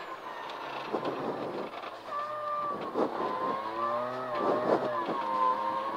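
Peugeot 106 rally car's engine, heard from inside the cabin. It is quiet and off the throttle for about two seconds as the car slows for an uphill hairpin. Then it revs up and down as the car is driven through the bend, with a few short knocks.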